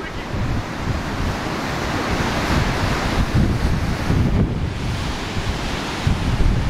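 Sea surf breaking on the beach below, with strong gusty wind buffeting the microphone.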